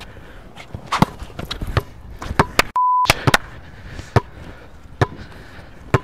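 Basketball bouncing hard on an outdoor court as a player dribbles, a sharp bounce every half second or so at an uneven pace. About three seconds in, a short steady censor bleep tone replaces all other sound for a moment.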